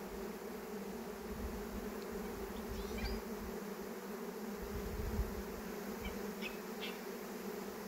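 A honeybee swarm in flight all around, tens of thousands of bees making a steady, dense buzz.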